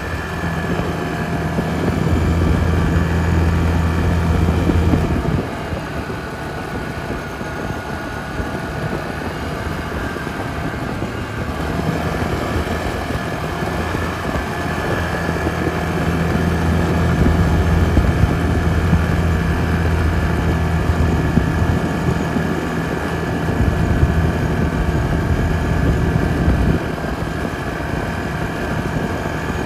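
Yamaha Grizzly 450 ATV's single-cylinder four-stroke engine running while riding, easing off about five seconds in, picking up again from about twelve seconds, and easing off again near the end.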